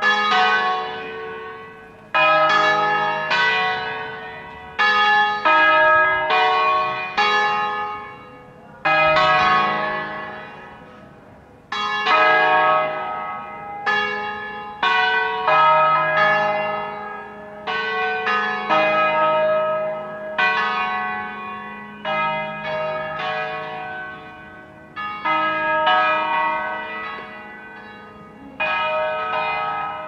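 Church tower bells ringing: several bells of different pitch struck one after another at uneven intervals, often two or three close together, each stroke ringing on and fading.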